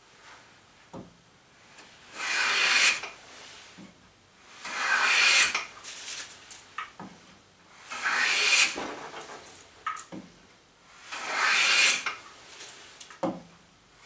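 Hand plane taking shavings off the edge of a pine board held in a vise, four strokes about three seconds apart, each a roughly one-second rasp, with light knocks between strokes as the plane is brought back.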